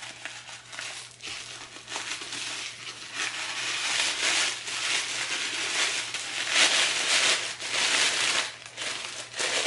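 Bubble wrap and tissue paper crinkling and rustling as a wrapped item is pulled open by hand. It builds about three seconds in and is busiest through the middle, with a brief lull near the end.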